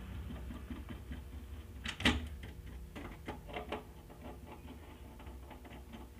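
Screwdriver tightening the terminal screws on a plastic switchboard: scattered small clicks and taps, with one louder knock about two seconds in, over a steady low hum.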